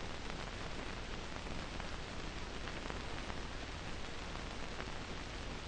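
Steady hiss with faint scattered crackles, the background noise of an old 1950s film soundtrack.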